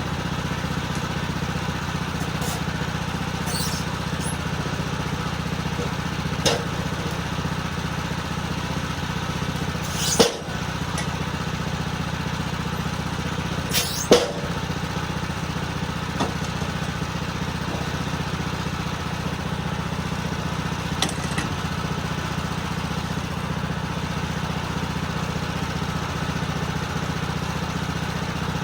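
Small gasoline engine of a Woodland Mills bandsaw sawmill running steadily, with a few sharp knocks, the loudest about ten and fourteen seconds in.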